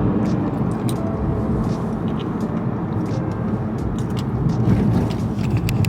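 Car idling: a steady low rumble.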